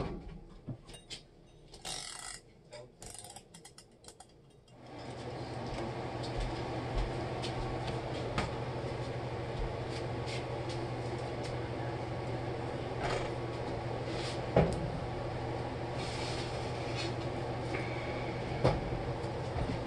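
Steady hum of a window air conditioner, starting suddenly about five seconds in, with a few sharp clicks and knocks of containers and a baking tray being handled. Before the hum, only scattered light clicks.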